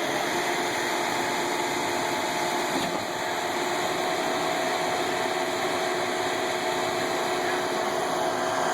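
Cement mixer truck's engine running steadily at a concrete pour, an even drone with a steady whine over it.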